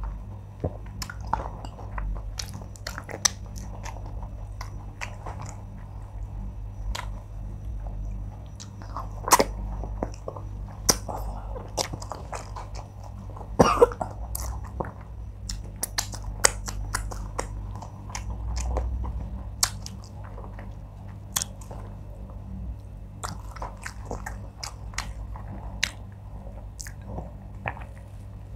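Close-miked chewing and lip smacking of a person eating wheat fufu and oha soup by hand, with frequent sharp wet mouth clicks over a steady low hum.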